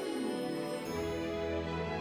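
Background music made of soft sustained pitched notes; a little under a second in, the music changes and a low bass line comes in.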